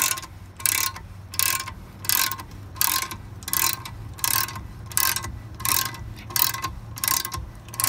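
3/4-inch ratcheting box wrench clicking in short bursts, about eleven strokes at an even pace, as it cranks up the screw of a tire leveler under a camper's wheel to raise the low side.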